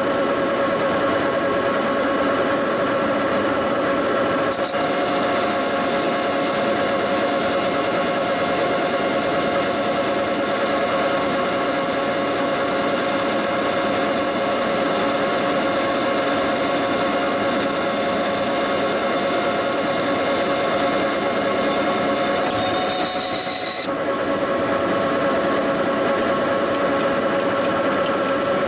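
40-inch swing lathe running with a steady note, boring a bore with a half-inch boring bar on a light finishing cut. A second, higher tone and a hiss join about five seconds in and stop suddenly near the end as the cut finishes.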